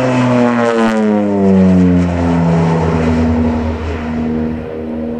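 North American OV-10B Bronco's twin Garrett T76 turboprops passing low overhead: the propeller drone drops in pitch about a second in as the aircraft goes by, then runs on steadily and fades a little as it climbs away.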